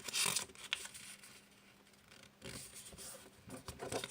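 A sheet of A4 paper rustling and scraping in short, irregular bursts as it is folded and creased by hand, the loudest burst right at the start.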